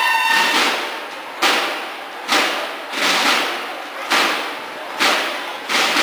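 Drums of a drum and bugle corps striking a slow, even beat of single strokes, a little faster than one a second, each one ringing out before the next. Bugles hold a last note just at the start.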